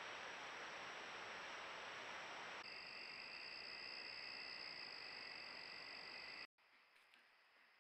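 Trail-camera recording: a steady hiss at first. After a cut, a steady high-pitched insect chorus of late-summer evening insects sounds in two even tones. After a brief dropout near the end, the insect tones go on much fainter.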